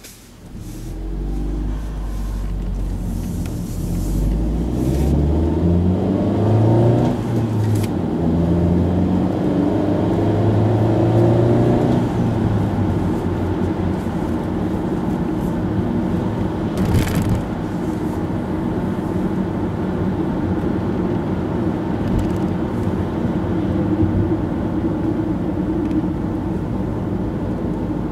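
Car engine and tyre noise heard from inside the cabin. The engine's pitch rises as the car pulls away, drops back at a gear change about seven seconds in and rises again, then settles into a steady cruise with road rumble from about twelve seconds on.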